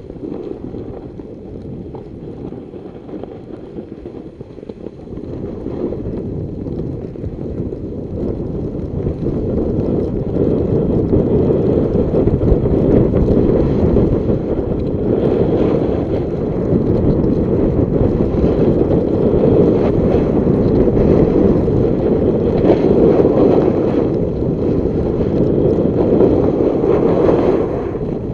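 Wind rushing over the microphone of a camera carried downhill on a ski slope, a steady low buffeting rumble that grows louder about a third of the way in.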